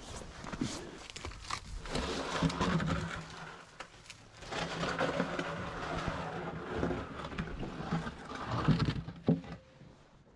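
An engine running in two spells, about two and then four seconds long, with a steady low hum; it drops back between them and dies down near the end.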